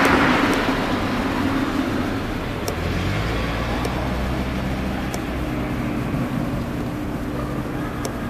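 Road traffic: a passing vehicle fades away over the first couple of seconds, then a steady low engine rumble carries on, with a few faint ticks.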